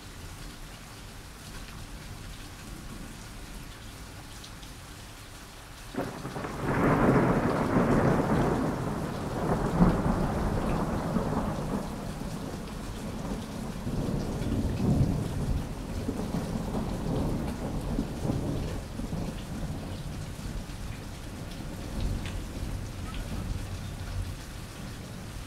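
Large boxing-arena crowd noise on old film sound: a steady hiss, then the crowd's din rises suddenly about six seconds in and slowly dies down, swelling again a few times.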